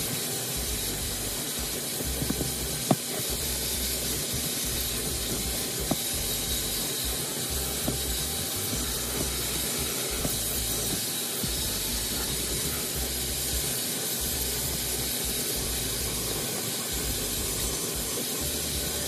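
HART 10-gallon wet/dry shop vacuum running steadily while vacuuming the driver's side of the car, its motor making a constant hiss with a faint high whine. A few sharp knocks come through, the clearest about three seconds in.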